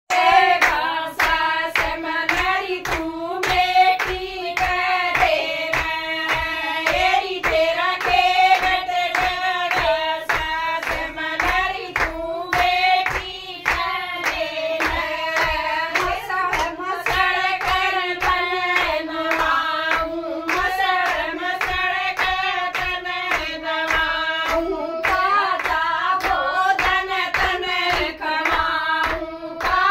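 A group of women singing a Haryanvi devotional folk song (bhajan) together, keeping time with a steady beat of hand claps.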